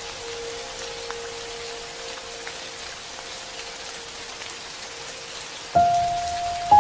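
Soft background music of sparse, slowly fading notes over a steady rain-like hiss. One held note dies away, then two higher notes are struck near the end.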